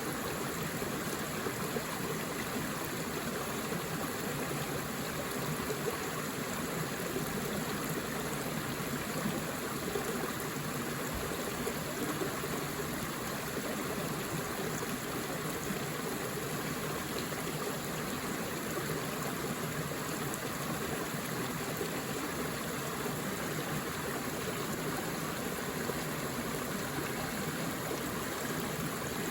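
Forest river flowing steadily over rocks, a continuous even rush of water.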